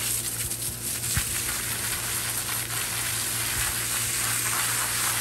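A steady hiss and spatter from a hose's spray jet hitting a hanging wild boar's wet fur and the concrete below, rinsing the soap out of the hide. The spray cuts off sharply at the end.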